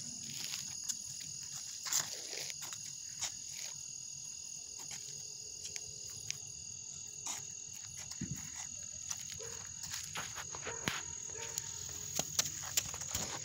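Crickets chirping steadily in a high pitch, with scattered faint clicks and taps.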